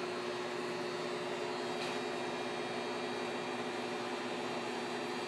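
Steady hum and air hiss of room equipment and ventilation, with a low steady tone under it and no change in level.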